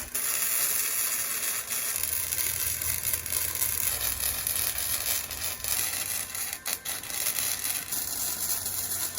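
Electric arc welder running a bead, a steady crackling sizzle with scattered sharp pops.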